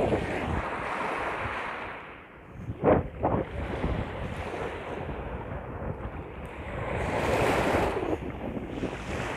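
Small sea waves washing and lapping onto a sandy shore, with wind blowing across the microphone. Two short thumps on the microphone come about three seconds in, and the wash swells again around seven seconds in.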